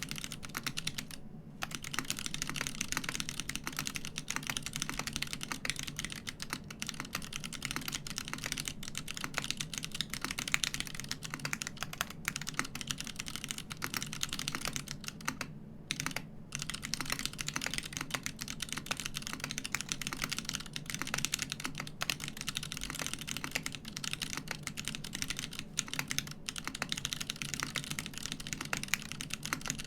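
Typing on a custom mechanical keyboard with unlubed Kailh Box Crystal switches on an aluminium plate in a TX60 polycarbonate case, with GMK keycaps: a fast, steady run of key clacks. It pauses briefly about a second in and again around the middle.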